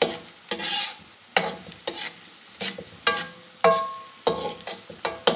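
Metal spatula scraping and knocking against a metal wok as julienned carrots are stirred in hot oil, about two strokes a second, a few ringing briefly. Underneath is a light sizzle of the carrots frying while their water cooks off.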